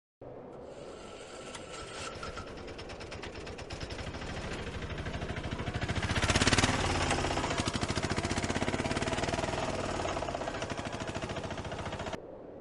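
A fast, even, machine-like pulsing noise that builds to its loudest about six seconds in, eases a little, then cuts off abruptly near the end.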